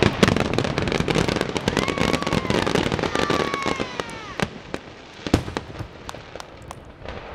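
Aerial fireworks going off: a rapid run of bangs and dense crackling for the first four seconds, then thinning to scattered single bangs, with a sharp one about five seconds in.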